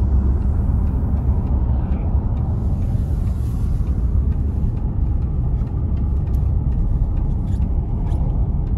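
Steady road noise of a car at highway speed, heard from inside the cabin: an even low rumble of tyres and engine.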